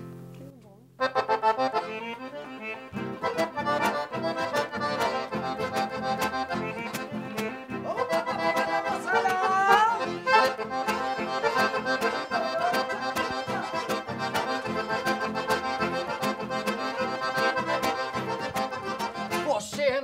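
Piano accordions, one of them a Piatanesi, playing an upbeat gaúcho-style dance tune with acoustic guitar and a steady beat. The tune starts about a second in as the instrumental intro to the song, before any singing.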